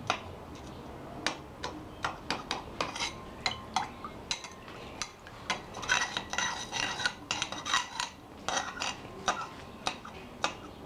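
Glass stirring rod clinking and scraping against the sides and bottom of a glass bowl of liquid, stirred to break up a lump that will not dissolve. Irregular sharp taps, some with a brief glassy ring, busiest around six to seven seconds in.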